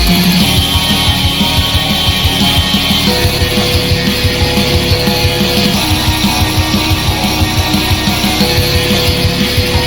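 Rock music with guitar over a fast, steady beat.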